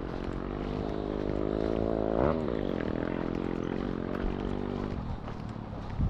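A motor vehicle passing close by: a steady engine hum rises to its loudest about two seconds in, the pitch dropping sharply as it goes past, then fades away about five seconds in.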